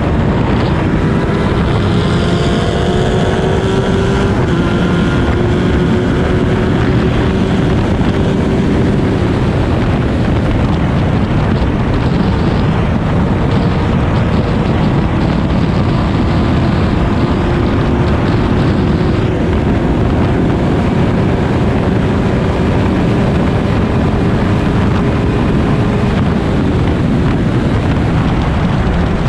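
Onboard sound of a historic single-seater racing car at race speed: continuous engine noise mixed with wind buffeting on the microphone, the engine note rising and falling with throttle and gears.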